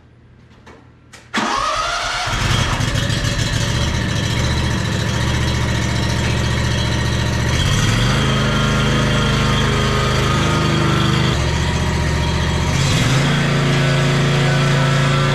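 Wright 36-inch Stander mower engine starting up about a second in, then running steadily, its note changing in steps about halfway through and again near the end.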